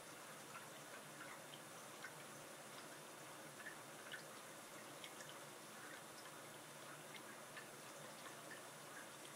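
Faint reef-aquarium water sounds: small drips and trickles at an irregular pace over a steady hiss.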